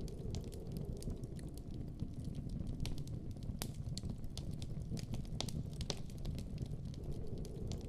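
Campfire crackling: irregular sharp pops and snaps over a steady low rumble of burning.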